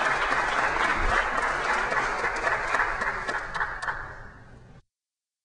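Applause: a crowd clapping, dying away over the last second or so, then cutting off abruptly into complete silence near the end.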